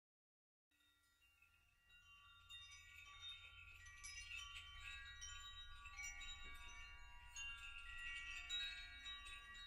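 Faint, shimmering chime music fading in about a second in and slowly growing louder.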